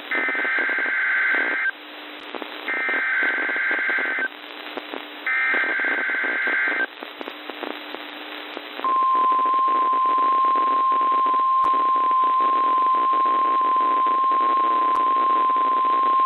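NOAA Weather Radio required weekly test: three bursts of the SAME digital header, a high, warbling two-pitch data chirp each about a second and a half long, then about nine seconds in the steady 1050 Hz warning alarm tone. All of it is heard through a weather radio receiver over steady static hiss.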